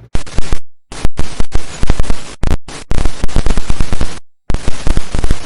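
Loud crackling, static-like noise in several blocks that start and stop abruptly, with dead silence in the gaps between them.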